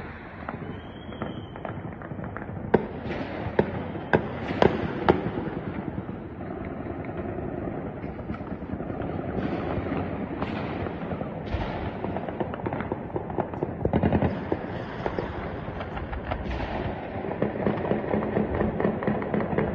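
Celebratory gunfire from many guns across a city: a continuous distant crackle of shots. Several sharp, louder reports come between about three and five seconds in, a heavier burst comes around fourteen seconds, and the firing grows denser near the end.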